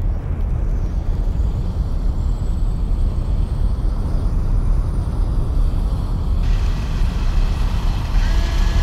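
A low, steady rumble with a faint high whistle slowly rising in pitch. About two-thirds of the way in a hiss joins it, and near the end a few held tones come in.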